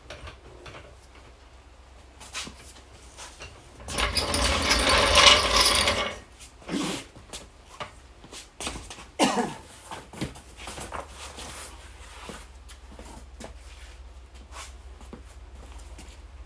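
Mechanical handling noises: scattered clicks and knocks, with a louder two-second mechanical whir about four seconds in and a short falling squeak about nine seconds in.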